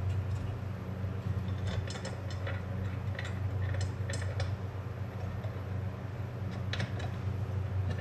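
Irregular metallic clicks and clinks of drill press parts, bolts and tools being handled during assembly, over a steady low hum.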